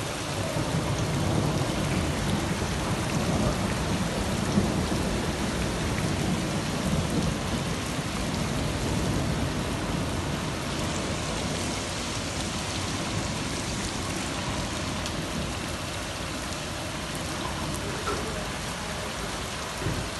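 Heavy rain pouring onto a flooded street: a steady hiss of rain and running water, with a low rumble that is stronger through the first half.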